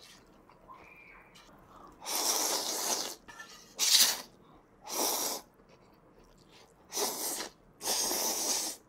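A person slurping ramen noodles, five loud slurps in a row starting about two seconds in, the longest near the start and near the end.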